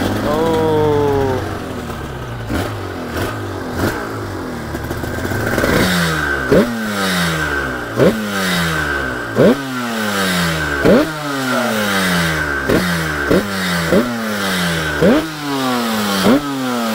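Overbored Yamaha RD350 two-stroke parallel-twin engine just fired up: the revs fall back and it runs unevenly for a few seconds. From about six seconds in the throttle is blipped over and over, each blip rising sharply and dying away, roughly once a second.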